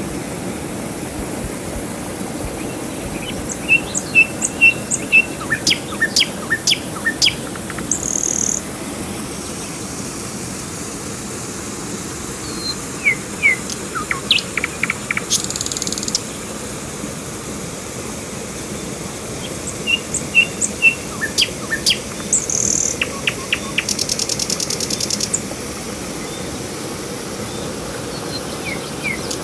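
Songbirds chirping in several short bouts, with a buzzy trill a little before the end, over a steady rushing background of river water.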